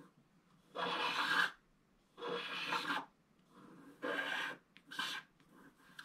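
Pointed wooden stylus scratching the black coating off a scratch-art sheet: four scraping strokes, each under a second long, with short pauses between, the last one shorter.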